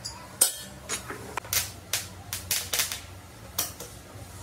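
An electric welding arc crackles and sizzles against a steel plate as it is struck again and again. It comes as a string of about ten sharp, irregularly spaced bursts.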